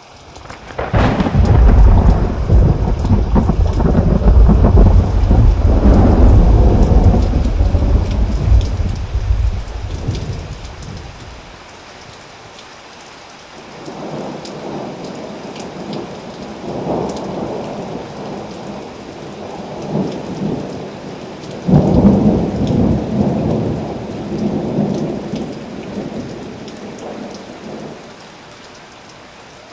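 Tropical thunderstorm: steady rain with a long, loud rolling rumble of thunder starting about a second in and dying away after about ten seconds. Two more, quieter rolls of thunder follow, the last one beginning more suddenly.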